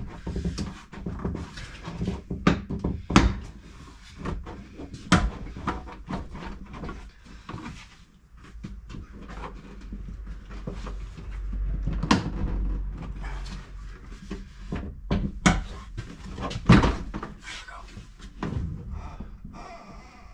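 Plastic inner trim panel of a Land Rover Freelander 2 tailgate being pried and tugged off its retaining clips with a plastic trim tool: repeated sharp clicks, knocks and creaks of plastic, with a low rumble for a couple of seconds past the middle.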